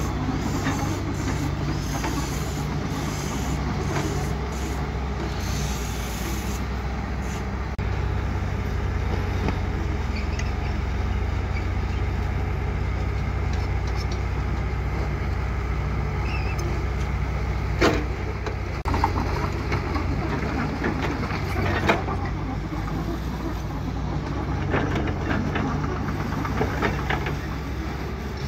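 Diesel engine of a small crawler bulldozer running steadily while it pushes dirt with its blade, with a few sharp clanks a few seconds apart about two-thirds of the way in.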